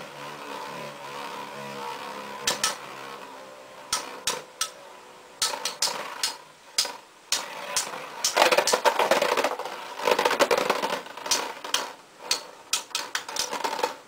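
Two Beyblade spinning tops with metal fusion wheels whirring in a clear plastic stadium, with sharp clacks as they strike each other. The clashing comes thick and loud past the middle, then thins to a few scattered knocks near the end as the tops wind down.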